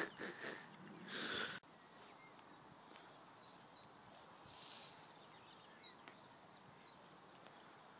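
Quiet outdoor background with a small bird giving a run of short, high chirps, several a second at times. A burst of rustling hiss in the first second and a half stops suddenly.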